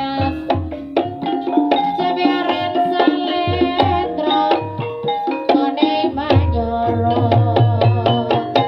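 Ebeg dance accompaniment music: hand drums beating a busy rhythm under a melody of ringing pitched percussion.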